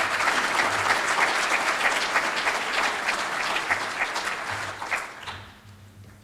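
A seated audience applauding, many hands clapping together, tapering off about five seconds in.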